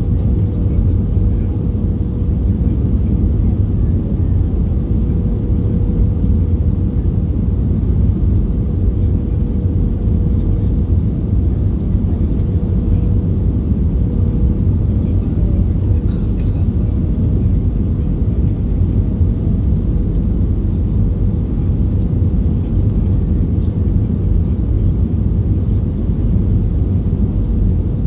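Steady roar of airflow and CFM56 jet engines inside the passenger cabin of an Airbus A320 in flight, deep and unchanging, with a thin steady hum running through it.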